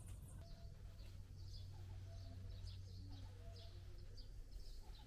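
Faint, scattered bird chirps over a steady low outdoor hum.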